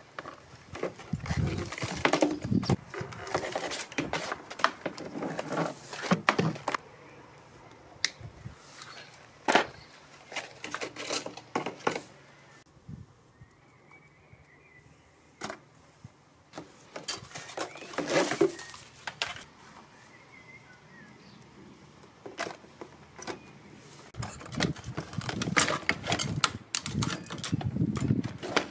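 Hand tools working on old TV circuit boards: pliers and wire cutters snipping and pulling copper wire, with clicks, snaps and rattling of boards and parts in a plastic tub, in bursts with quieter pauses between.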